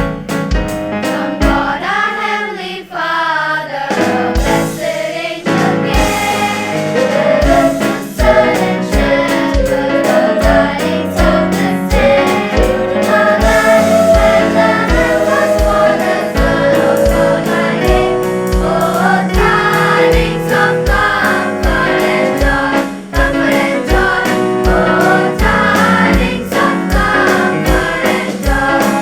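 High school choir singing over a band accompaniment with a steady drum beat of about two strokes a second. The beat drops out for a few seconds near the start, then comes back in.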